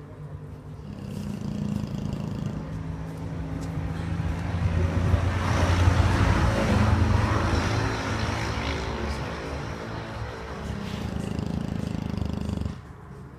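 Dog snoring: a low, rattling drone that swells to its loudest about halfway through and stops suddenly near the end.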